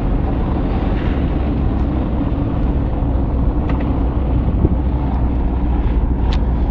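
Car driving, heard from inside the cabin: a steady low rumble of engine and road noise. A short high-pitched chirp near the end.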